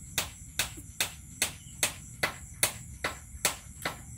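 Sharp knocks repeating evenly, about two and a half a second, over a steady high trill of night insects.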